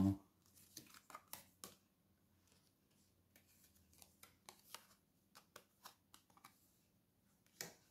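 Tarot cards being handled and laid down: faint, scattered soft flicks and taps of card stock, in two loose runs with one slightly louder tap near the end.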